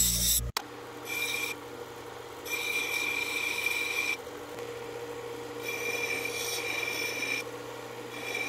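Bench grinder running briefly, its wheel grinding a steel gouge tip back past pitting, then a powered flat-disc sharpener humming steadily while a steel gouge is pressed to its spinning abrasive disc in four strokes of hissing grinding, each one to two seconds long.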